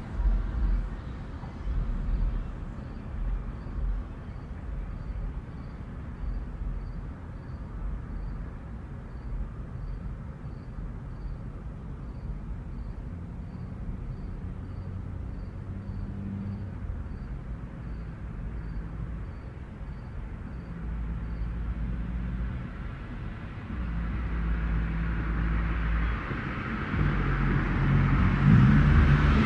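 Small-town night ambience: a steady low rumble of distant road traffic with a single cricket chirping faintly about one and a half times a second. The chirping stops about two-thirds of the way through, and near the end a vehicle approaches and grows louder.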